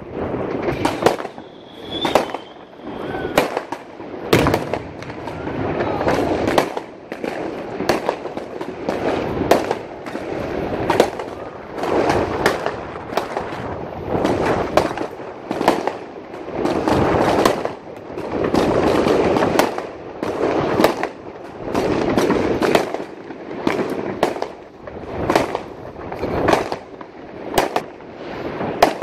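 Many fireworks going off: sharp bangs following one another, often one or two a second, over a continuous rumble.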